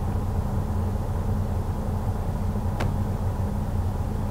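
Detroit DD15 inline-six diesel in a 2011 Freightliner idling steadily, all cylinders firing. A single sharp click about three seconds in.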